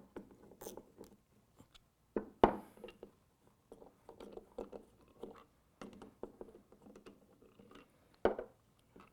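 A 15 mm socket wrench loosening and removing the plugs from a GROHE Rapido SmartBox valve cartridge: scattered sharp metal clicks and knocks, with runs of small quick clicks between them.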